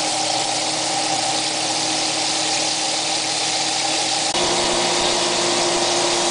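Breaded chicken pieces frying in hot oil in a skillet: a steady sizzle, with a steady mechanical hum underneath. The sound changes abruptly about four seconds in, when the hum shifts to a different pitch.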